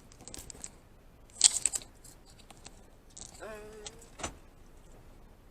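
Rustling and clicking handling noises inside a car, loudest in a short crackly burst about a second and a half in, with a brief hum from a voice about three and a half seconds in.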